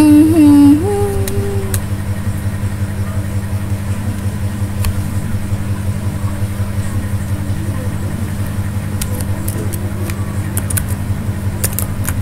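A steady low background hum, with a short hummed voice sound in the first second or two. Scattered sharp clicks come from about nine seconds on, as keys are typed on a computer keyboard.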